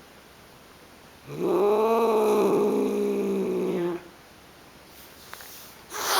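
A household pet's long, drawn-out vocal call, starting about a second in, rising at first and then held for about two and a half seconds.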